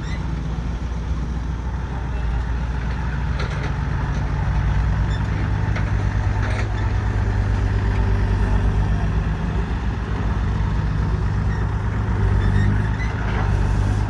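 Dump truck's diesel engine running loud, a steady low drone that grows louder about four seconds in and stays up.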